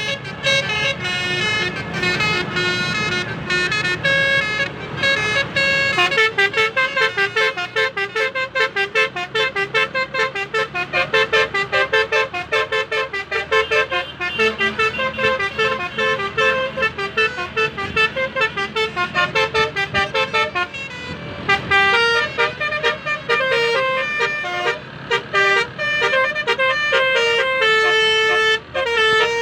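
Basuri telolet horn, a multi-trumpet musical vehicle horn, playing a fast tune of short, quickly changing notes, with a brief break a little past two-thirds of the way through.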